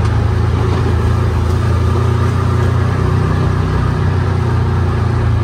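Side-by-side UTV engine running steadily as the vehicle drives along, a strong low hum over even tyre and chassis noise.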